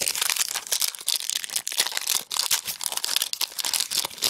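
A 2009 Threads football card pack's wrapper being torn open and crinkled by hand, a dense, continuous crackling that starts abruptly.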